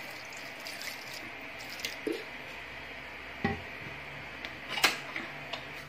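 Water poured in a steady stream into an aluminium pressure cooker of cut tomatoes. A knock comes about three and a half seconds in, and a sharp click near the end.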